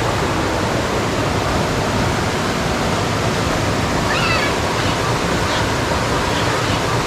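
Waterfall pouring down onto rock, a loud, steady rushing of water, with a few faint high chirps about four seconds in.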